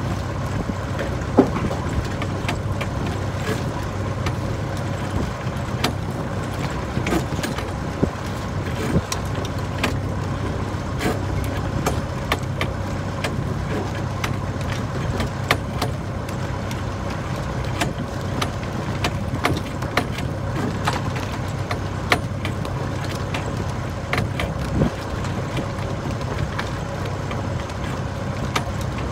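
A sailing ketch's auxiliary engine running steadily with an even low hum, with scattered light clicks and knocks over it.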